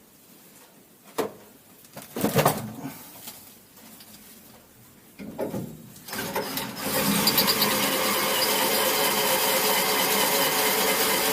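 A few knocks and clicks of tools being handled on metal, then an electric drill starts about six seconds in and runs with a steady whine.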